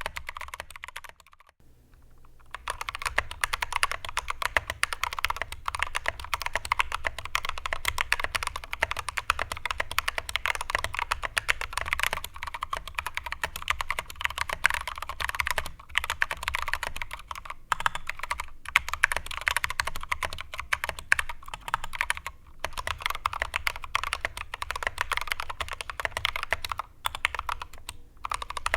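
Mechanical keyboard with Kailh Polia tactile switches being typed on quickly and continuously: a dense run of keystroke clicks and clacks, with a brief pause about two seconds in.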